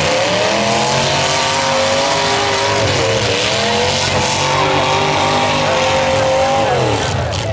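Demolition derby car engines revving hard, their pitch rising and falling, with a dip about three seconds in and a drop near the end, over a steady hiss.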